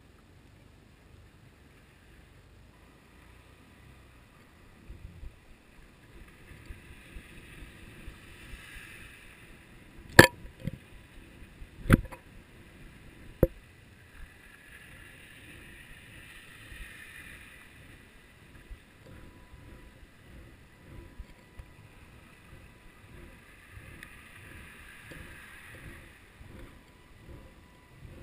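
Underwater sound through a GoPro's waterproof housing tied to a lead cod jigger on a hand line: muffled water noise with many low, irregular thumps. Three sharp knocks come about ten, twelve and thirteen and a half seconds in.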